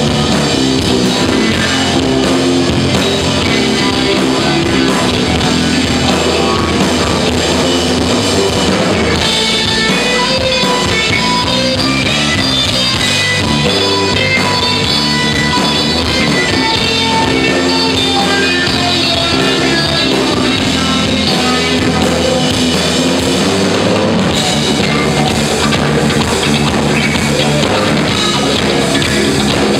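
Live rock band playing: amplified electric guitars over a drum kit, loud and continuous.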